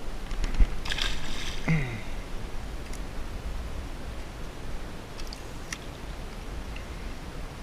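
A largemouth bass released back into the shallows with a short splash about a second in, over wind rumbling on the microphone. A few faint clicks follow later.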